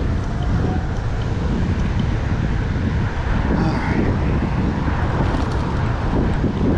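Steady wind rushing over the microphone of a moving bicycle rider, a constant low-pitched buffeting.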